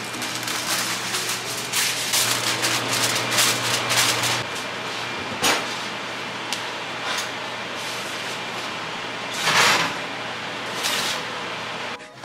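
Aluminium foil being pulled and crinkled for the first four seconds or so. Then oven handling sounds: a single click, and a louder scrape or rush just before ten seconds in as a foil-covered dish goes onto the oven rack.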